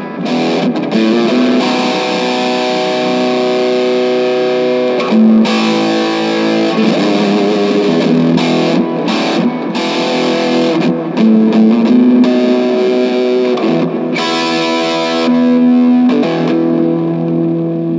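Distorted electric guitar, a Gibson Les Paul Jr with P90 pickups through a Boss DS-2 into a VOX AC4C1-12 valve combo amp, playing held chords and notes that change every second or two. The last chord is left to ring and starts to fade near the end.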